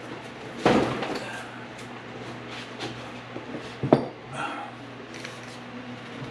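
Knocks and clatter of tools and objects being handled and set down. The two sharpest knocks come just under a second in and again about four seconds in, with lighter clicks between, over a faint steady hum.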